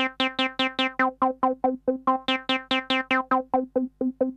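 Roland TB-03 bass synthesizer playing an acid bassline: a fast, even run of about seven short notes a second on one pitch. Its knobs are being turned as it plays, and the notes grow brighter about two seconds in and duller again near the end.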